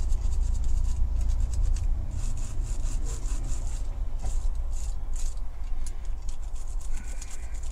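Hand wire brush scrubbing paint off a diecast toy body that has been softened in caustic soda, in runs of quick scratchy strokes.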